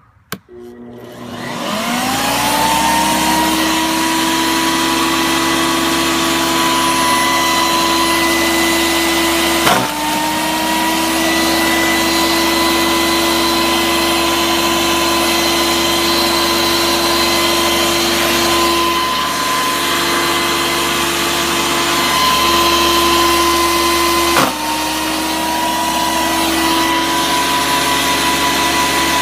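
A small wood chipper starts up and winds up to a steady whine within the first few seconds. Twice, about 10 seconds in and again near 24 seconds, it gives a sharp knock and the pitch dips for a moment as a small carp is fed through and chopped. Each time it recovers to full speed.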